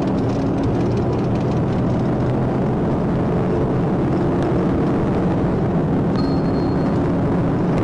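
Loud, steady engine and road noise of a Dodge Charger patrol car driven at pursuit speed, heard from inside the cabin. A brief high tone sounds about six seconds in.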